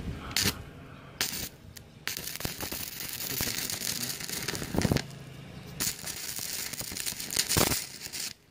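Stick-welding arc from a Moris 160 A IGBT inverter welder set to 55 amps, crackling and sizzling. The arc is struck and broken a few times in the first two seconds, then burns steadily until it cuts off just before the end. This is a test weld on the newly repaired machine.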